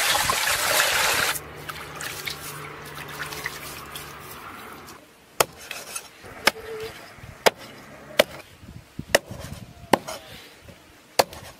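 Water pouring over a cooked whole chicken in a stainless steel basin, loud and gushing, stopping after about a second. Then, from about five seconds in, a cleaver chopping the cooked chicken on a wooden chopping block: sharp single chops, about one a second.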